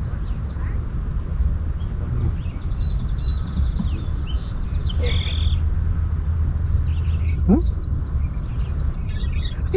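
Steady low outdoor rumble with birds chirping over it now and then, and a short high whistled note about five seconds in.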